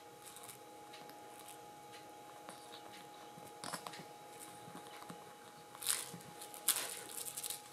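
A kitten biting and grappling a plush toy, with scattered soft crunchy scuffs and rustles of paws and toy on a fabric blanket. A louder flurry comes about six to seven and a half seconds in, as it rolls over clutching the toy.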